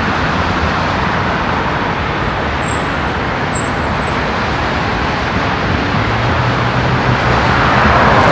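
Steady rush of road traffic and wind over the microphone of a cyclist riding alongside moving cars. Near the end a vehicle passes close by, and its low engine hum and tyre noise swell.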